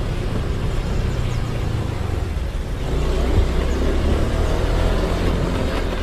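Motorcycle running on the road, its engine heard under a steady low rumble of wind on the microphone; the engine note grows a little stronger about halfway through.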